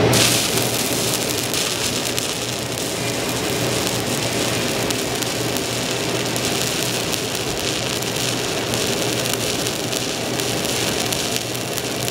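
Stick welding arc on a 7018 electrode: a steady frying crackle as the bead is run. The arc strikes up abruptly at the start, a restart of the bead, then burns evenly.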